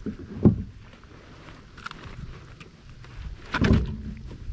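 Knocks and thumps on the plastic kayak deck while a freshly landed bass is handled and unhooked: one sharp thump about half a second in and a longer knock with rustling past three seconds.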